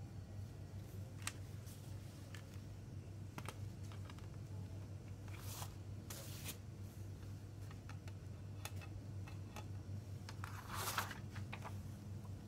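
Hands handling a plastic CD jewel case: scattered light clicks and taps, two brief scraping rustles around the middle, and a louder rustle near the end as a card insert is pulled out. A steady low hum runs underneath.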